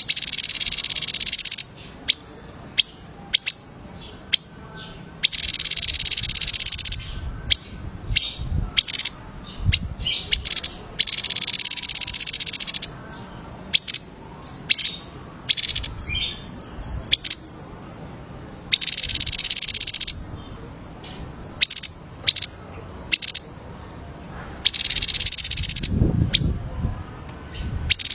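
Recorded songbird calls used for masteran training: a loud, high buzzy trill lasting about one and a half to two seconds, repeated five times every five to seven seconds, with short sharp chirps in between.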